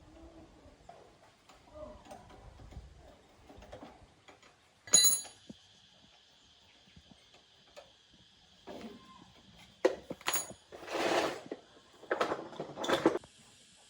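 Scattered knocks and clinks of metal tools being handled during motorbike tyre work, with one sharp metallic clank about five seconds in that keeps ringing, and a few louder scraping clatters near the end.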